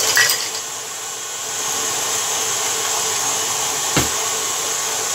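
KitchenAid stand mixer running steadily as it beats the egg, sugar and oil batter. There is a brief noise just after the start and a single knock about four seconds in.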